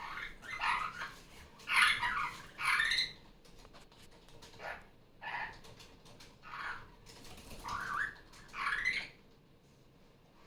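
Barraband parakeet (superb parrot) calling: a string of about nine short, harsh calls at irregular intervals, the loudest two about two and three seconds in.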